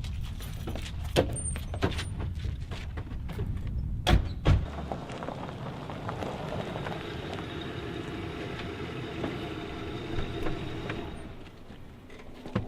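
A motor vehicle running nearby, with two sharp thuds about four seconds in.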